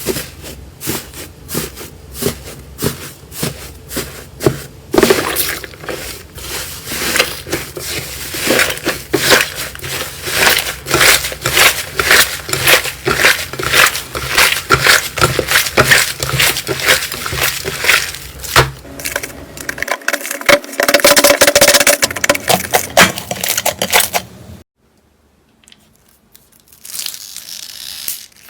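Slime being squeezed and pressed by hand, making a dense run of crackling and popping clicks. The sound stops about four seconds before the end, with one short crackling burst near the end.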